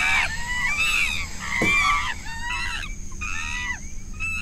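Excited apes calling, a rapid jumble of overlapping hoots and screeches, several a second, each rising then falling in pitch. The calls are densest in the first two seconds and thin out a little after.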